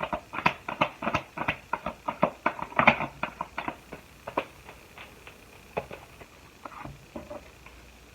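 Tarot cards being handled by hand: a quick run of light slaps and taps, about three a second, that thins out to a few scattered taps after about four seconds.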